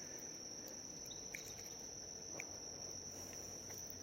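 Steady high-pitched insect chorus, one continuous even trill, with a few faint ticks.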